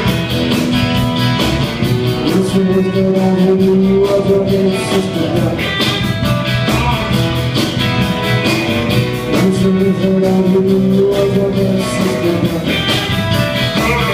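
Live rock and roll band playing with amplified electric guitars, acoustic guitar and a steady drum beat, in a passage between sung lines.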